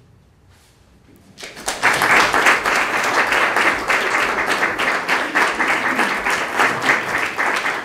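Audience applauding: a moment of quiet room, then about a second and a half in, many people start clapping together and keep on steadily.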